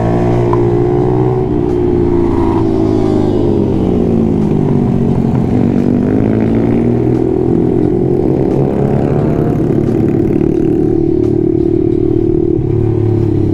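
A 125cc pit bike's engine revving up and down as it is ridden hard through a series of corners. The pitch sinks about halfway through, climbs again, and holds high near the end.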